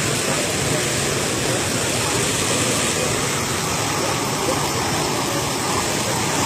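A tall jet of water shooting up out of the ground and crashing back down in heavy spray, a steady rushing noise.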